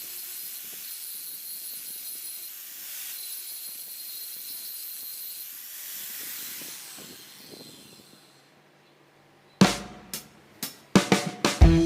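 Background music: a hissy high sweep with steady high tones fades out to near silence, then a run of drum hits leads back into the full band near the end.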